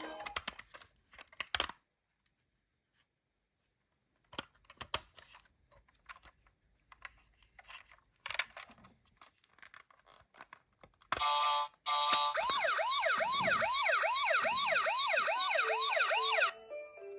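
Toy ambulance's electronic siren sounding in quick repeated rising sweeps, about two or three a second, for roughly five seconds in the last third, then cutting off suddenly. Before it, scattered small plastic clicks and knocks from the miniature car, with stretches of silence between them.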